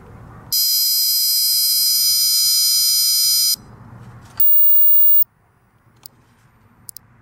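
Solar ultrasonic motion-activated animal repeller set off by movement at its sensor: its speaker sounds a loud, high-pitched, steady electronic buzz for about three seconds, then a brief, much higher thin tone about four seconds in. A couple of faint clicks follow near the end.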